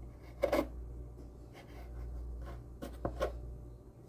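Scraping and rubbing of soft biscuit dough being worked by hand, with a few short sharp handling sounds about half a second in and again near three seconds, over a steady low hum.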